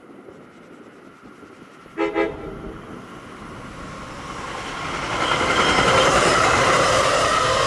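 A New Jersey Transit train's horn gives one short toot, then the train approaches and its running noise builds steadily until it is loud as it passes close by.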